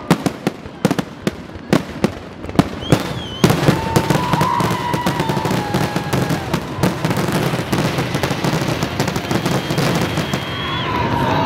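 Fireworks display: a rapid series of sharp bangs and crackles that thickens about three and a half seconds in into a dense, continuous barrage, with a few wavering whistling tones over it.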